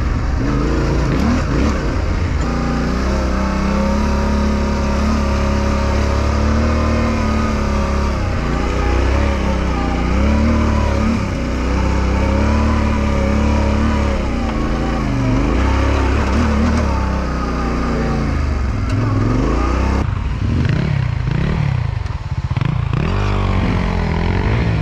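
Yamaha Ténéré 700's parallel-twin engine running while riding off-road, its revs rising and falling with the throttle. About twenty seconds in, the revs drop lower and swing more.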